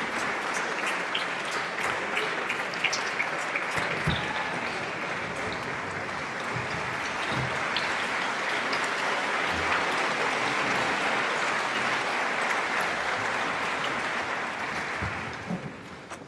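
Concert hall audience applauding steadily as the conductor takes the podium, the clapping dying away near the end.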